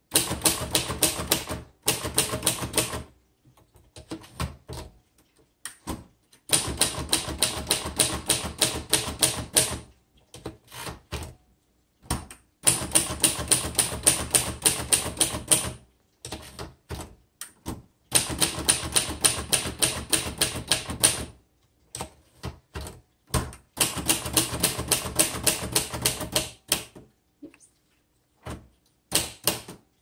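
1960s Royal Tab-O-Matic manual typewriter being typed on: quick runs of keystrokes, each lasting a few seconds, broken by short pauses with a few single strokes between them.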